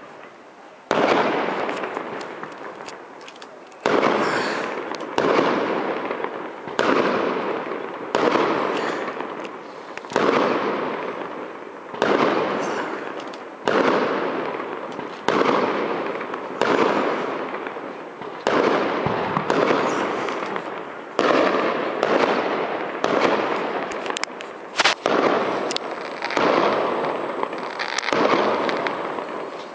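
Aerial firework shells bursting one after another, a sharp bang about once a second. Each bang trails off in a rolling echo before the next.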